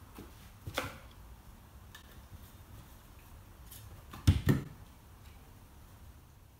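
Young red fox playing with an apple on a cloth over a wooden floor: a light tap about a second in, then two dull thumps in quick succession past the middle as it pounces and noses at the apple.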